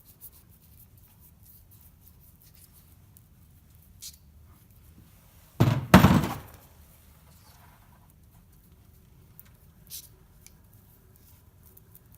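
A single loud thunk about halfway through, a hard object knocking on a hard surface, with a couple of faint light clicks of handling before and after.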